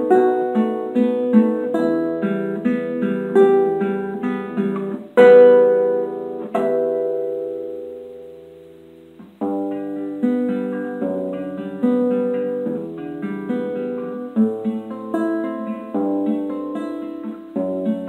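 Solo classical guitar with nylon strings, fingerpicked in fast runs of notes. About five seconds in a loud chord is struck, then a second, and they are left to ring and fade for a few seconds before the quick picking starts again.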